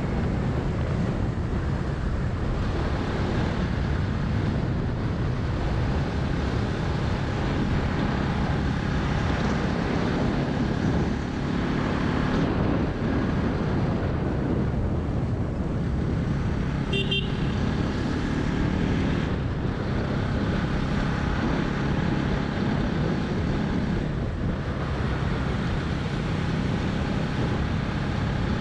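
Motorcycle riding in road traffic: a steady engine hum and road noise, with a short horn toot a little past the middle.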